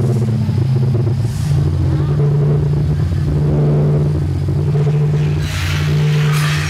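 Dark-ride vehicle and its effects sound: a loud, steady low droning hum with several overtones. About five and a half seconds in, a rushing hiss joins it.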